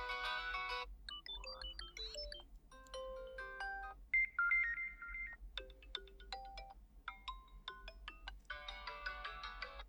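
Several short ringtone melodies from the POCO X5 smartphone's default system tones, played through its speaker one after another. Each stops abruptly and the next one begins every one to three seconds.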